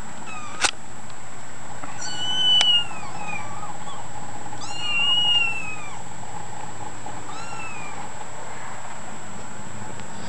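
Kitten mewing three times, high-pitched calls a couple of seconds apart, each rising then falling in pitch. A sharp click comes shortly before the first.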